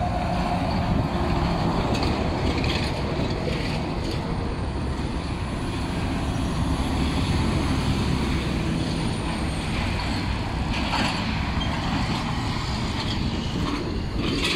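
Heavy road traffic passing close by: a semi-truck pulling double tanker trailers goes by with its diesel engine and many tyres, followed by a steady stream of passing cars.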